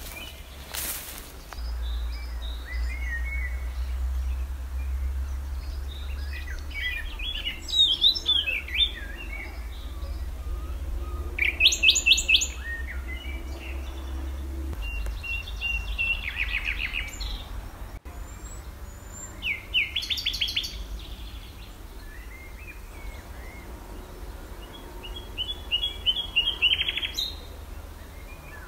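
Songbirds singing in woodland, with short song phrases coming every four seconds or so, over a steady low rumble.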